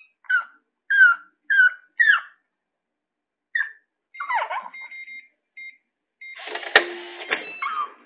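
A chihuahua whining in a run of short, high yelps, about one every half second in the first few seconds. Then come steady electronic beeps from a digital door-lock keypad, and a clattering with one sharp clack from the lock in the last two seconds.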